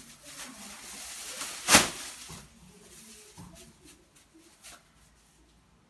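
Rustling of a thin disposable plastic apron being pulled on over the head and down over a disposable gown, with one sharp, loud snap of plastic about two seconds in. It then settles to a few faint rustles.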